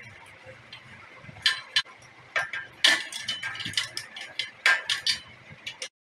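Ratchet wrench clicking in irregular runs, with metal clinks, as the exhaust silencer's mounting bolt is tightened on a motorcycle; the sound cuts off suddenly near the end.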